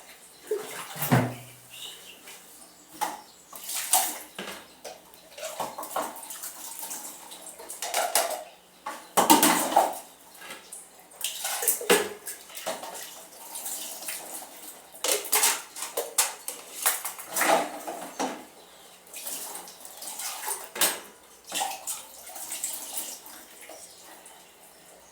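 Dishes, pots and cutlery being washed by hand in a basin of standing water: irregular clinks and clatters of metal and crockery knocking together, with water sloshing and splashing between them.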